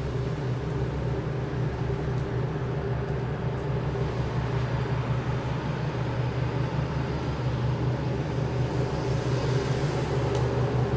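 Steady low-pitched engine drone with a fast pulsing beat underneath, holding a constant speed.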